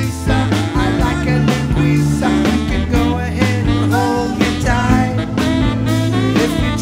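Live band playing: drum kit keeping a steady beat under bass, electric guitar, keyboards and saxophone.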